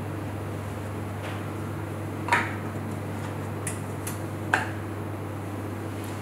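A few light clicks and taps of kitchen utensils against a dish or tray, with two sharper ones about two and a half and four and a half seconds in, over a steady low hum.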